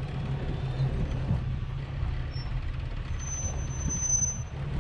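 An SUV's engine running at low speed as it crawls over rocks, heard as a steady low rumble, with a thin high squeal lasting about a second and a half near the end.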